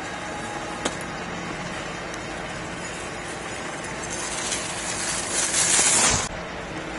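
Alpine skis carving and scraping across groomed snow, a hiss that grows louder as the skier comes close and cuts off sharply about six seconds in. A steady low hum runs underneath.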